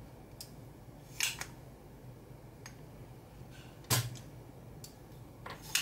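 A few sharp clicks and taps of metal tools against the circuit board during desoldering, the loudest with a dull knock about four seconds in, over a low steady hum.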